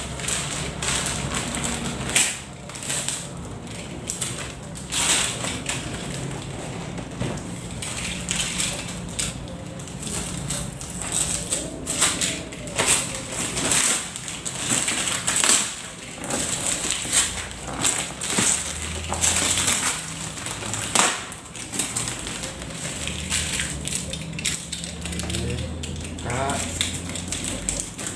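A courier bag crinkling and tearing as it is pulled and ripped off a cardboard box, in irregular rustles and rips.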